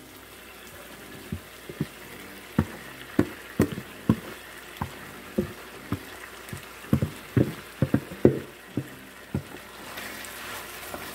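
Wooden spoon knocking and scraping seasoning out of a plastic bowl into a pot of browning chicken: a run of short, irregular taps over a low sizzle from the pot. Near the end it turns to stirring in the pot and the sizzle grows.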